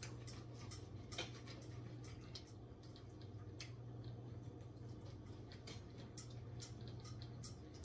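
Faint, irregular light clicks and taps of a knife and fork against a plate as meat is cut off a ribeye steak bone.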